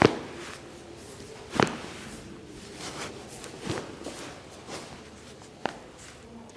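Several sharp knocks and cracks from a chiropractic adjustment of the back. The loudest comes right at the start, with others about one and a half and three and a half seconds in and a small one near the end.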